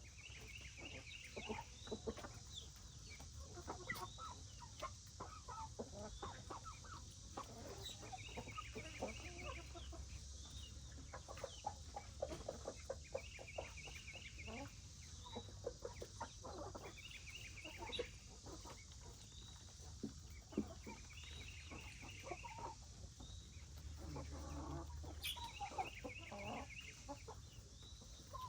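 Domestic chickens clucking softly, with many short scattered calls. A short, high, rapidly pulsed trill recurs about every three to four seconds.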